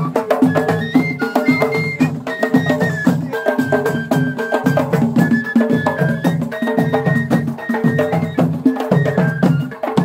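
Traditional drumming: several hand-beaten drums play a fast, dense rhythm over a deeper drum pulse about once a second, with a high melody of held notes running above it.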